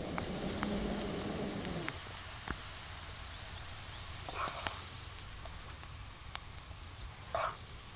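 Knife scraping butter across a slice of crusty bread for about two seconds, stopping abruptly. After that it is quieter, with scattered light clicks and two brief scrapes, the louder one near the end, as a spoon lifts fried mushrooms out of a frying pan.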